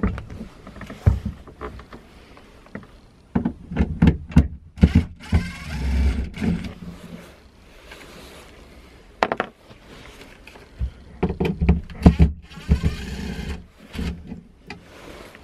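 Cordless drill-driver backing out the screws that hold a roof vent's inner frame, running in several short bursts with knocks and clicks of handling in between.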